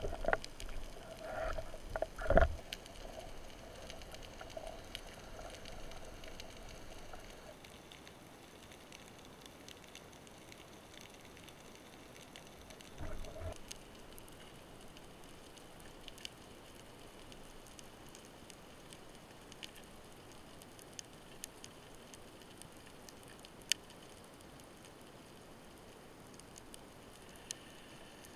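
Underwater sound: a couple of knocks in the first few seconds with a faint ringing tone that fades over several seconds, a dull knock about 13 seconds in, then the steady hiss of the sea with scattered sharp clicks.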